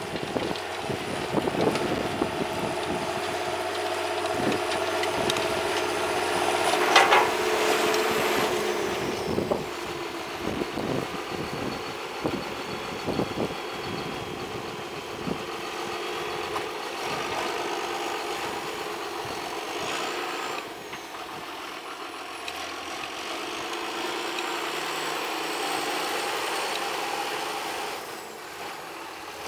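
John Deere tractor engine running under load while pulling a seed drill, coming closer and then turning, with a loud burst of noise about seven seconds in and repeated low thumps in the first half.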